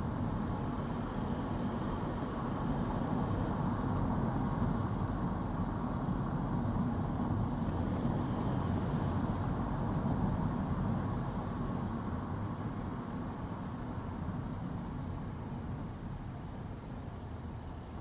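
A car driving on a road: steady tyre and road noise with engine rumble, growing gradually quieter over the last several seconds.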